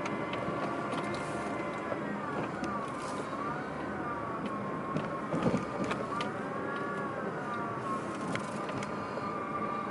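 Car driving with steady road noise heard from inside the cabin, over a sustained pitched tone that slowly dips and rises in pitch; a thump about five and a half seconds in.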